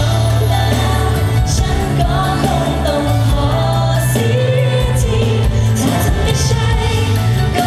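Pop-rock song played by a live band, with electric guitar, drums and a heavy bass line, and a female lead singer singing over it.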